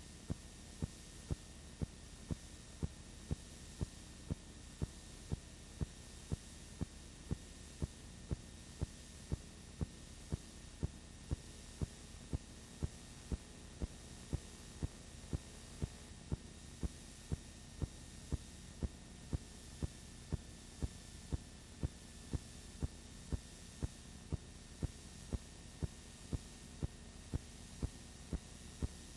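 A steady low hum with a sharp click repeating about twice a second, evenly spaced and unchanging.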